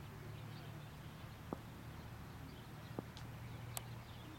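Faint outdoor ambience: a low steady rumble with faint bird chirps, broken by three sharp knocks, the last and crispest a little before the end.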